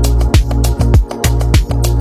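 Background electronic music with a steady, driving beat of deep kick drums and crisp high ticks.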